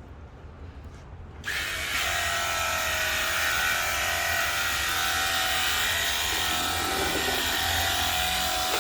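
Battery-powered cordless pressure washer's electric pump starting about a second and a half in, then running steadily with a motor whine and the hiss of the spray.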